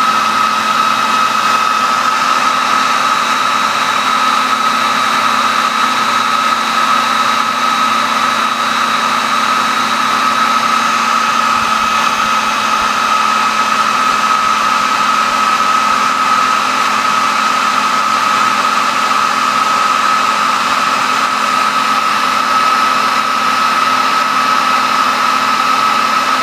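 Hair dryer running on high: a steady whine over an even rush of air, unchanging throughout.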